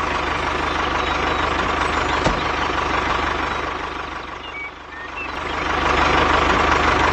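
Heavy vehicle engine running steadily. It eases off a little about four to five seconds in, then builds back up.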